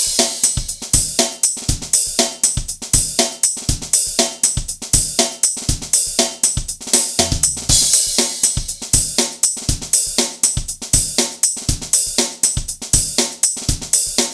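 Background music with a steady drum-kit beat: kick, snare and hi-hat.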